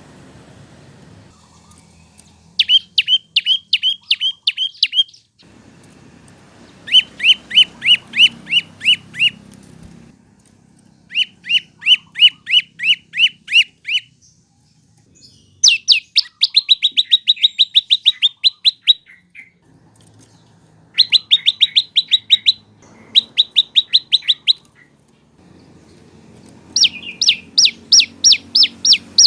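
Prenjak lumut (lancur) singing in repeated bursts of rapid, sharp chirps, about five notes a second. Each note slurs quickly down in pitch, and each burst lasts two to three seconds with short pauses between them.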